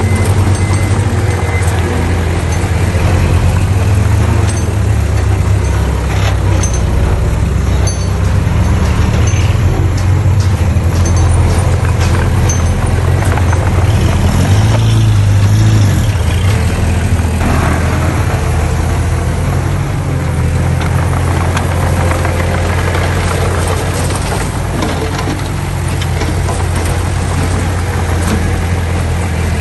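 Heavy diesel engines of earthmoving machinery, dump trucks and a small bulldozer, running steadily under load, with a few knocks around the middle.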